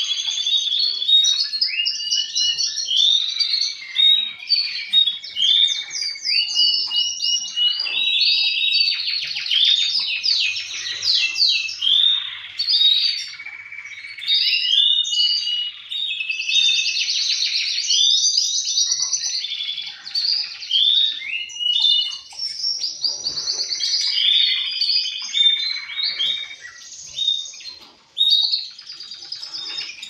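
Male domestic canaries singing: a long, continuous song of rapid rolling trills and chirps, with more than one male singing over and answering the other.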